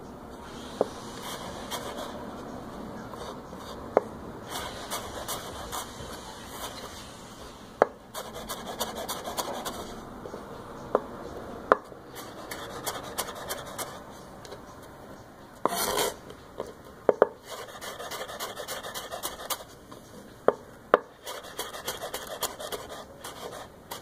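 Chef's knife slicing carrot planks into thin julienne strips on a wooden cutting board: a continuous rasping rub of quick light cuts, with sharp knocks of the blade on the board every few seconds. A brief louder scrape comes about two-thirds of the way through.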